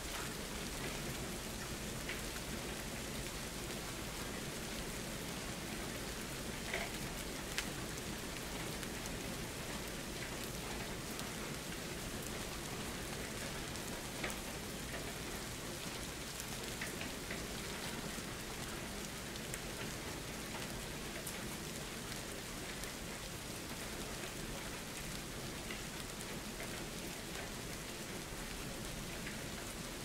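Steady rain falling, an even hiss with a few sharper drop ticks here and there.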